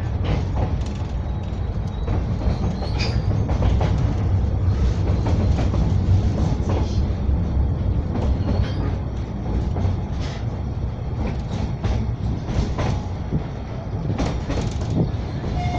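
Narrow-gauge children's railway train running steadily, with a low rumble and wheels clattering irregularly over the rail joints.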